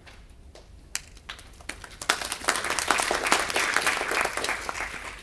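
Audience applauding: a few scattered claps about a second in, swelling into full applause that fades near the end.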